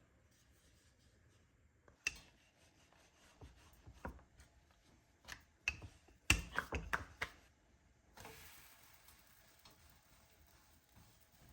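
Light clicks and knocks of objects being handled, densest around the middle, followed by a steady soft hiss lasting about three seconds near the end.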